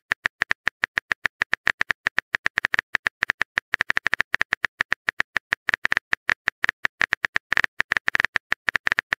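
Typing sound effect of a texting-chat app: rapid, uneven keyboard-like clicks running on without a break while a message is being composed.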